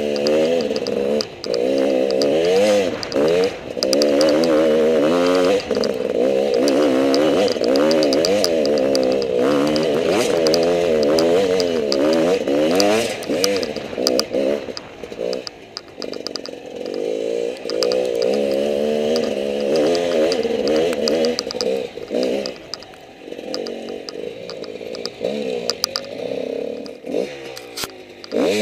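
Enduro motorcycle engine being ridden on a dirt trail, the revs rising and falling over and over as the throttle is opened and closed through the bends. It eases off and runs quieter for a few seconds near the end, then revs up sharply.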